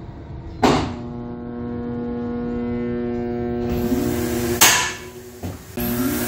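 Capacitor-discharge foil welding machine firing. A sharp click comes first, then a steady electrical hum of several tones for about four seconds. About four and a half seconds in there is a loud sharp bang as the 2 kJ discharge vaporizes the aluminum foil actuator and drives the aluminum sheet onto the steel. After a brief quieter moment the hum comes back.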